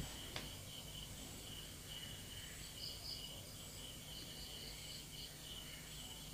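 Faint insect chirping, a steady train of short high-pitched pulses, over low background noise, with one light click about half a second in.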